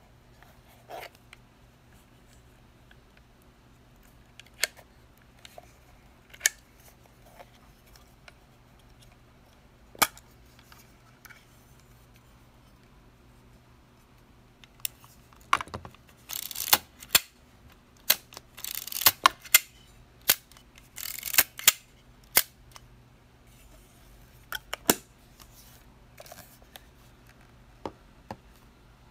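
Petri Pro 7 mechanical film camera being worked by hand: a handful of sharp mechanical clicks spaced seconds apart, then, past the middle, a busy run of clicks and short rasping strokes from its controls and back, typical of winding the film advance and firing the shutter.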